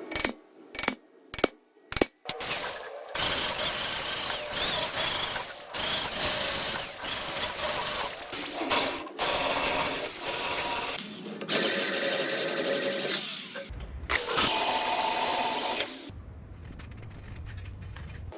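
Electric welding on a steel turbo exhaust manifold: a few short tack bursts first, then several longer runs of crackling arc lasting a few seconds each, separated by short pauses, stopping near the end.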